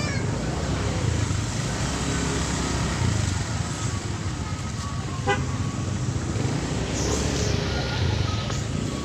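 Continuous low rumble of a motor vehicle on the move, with a single short horn toot about five seconds in.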